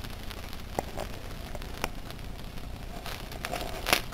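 Hot oil sizzling and crackling under a disc of pizza dough frying in a stainless steel pot, with scattered small pops and one louder click near the end.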